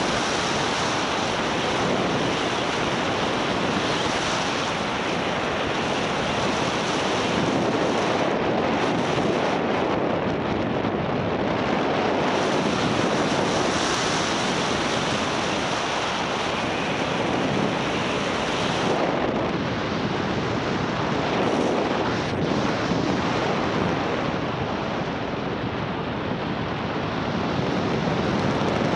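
Steady rushing of wind over the microphone as the paraglider flies through the air, with no engine tone.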